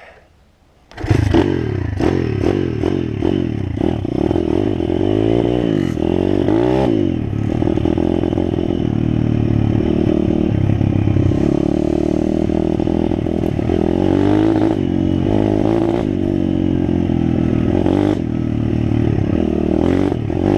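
Small single-cylinder dirt bike engine bursting into life about a second in and then running under way, its revs rising and falling as the throttle is worked, with clattering from the bike on the rough track.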